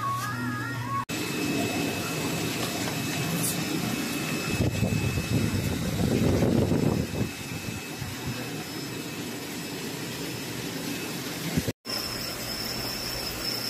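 Steady rushing ambient noise, loudest for a few seconds in the middle, after about a second of background music. Near the end a brief dropout is followed by a steady high insect chirring, like crickets.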